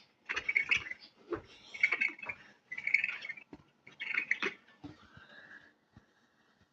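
A string of short, varied sound effects, one about every second, with a brief rising tone near the end.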